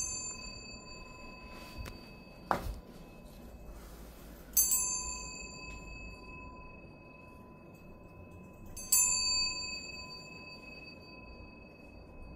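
A small metal prayer bell struck three times, about four and a half seconds apart, each strike ringing out for several seconds, rung during Buddhist prayer. A single sharp knock comes between the first two strikes.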